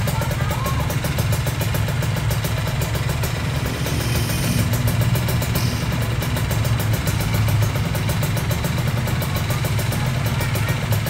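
Kawasaki Ninja R's two-stroke single-cylinder engine idling steadily through a Rozzo aftermarket exhaust.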